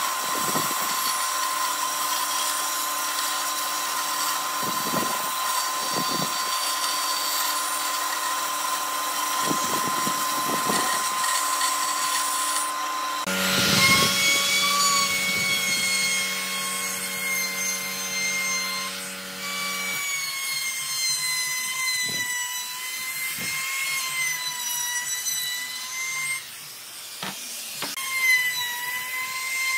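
A band saw runs steadily while cutting a curve through a block of pine. About halfway through, a handheld electric trim router takes over, whining as it routes the edge of a circular cutout in a pine tabletop, its pitch wavering as the load changes.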